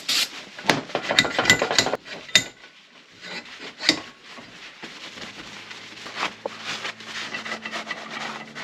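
A short hiss of aerosol brake cleaner being sprayed at the very start, then a quick run of light metallic clicks and knocks from handling the vise and can, one more knock about four seconds in, and quieter rubbing as it is wiped.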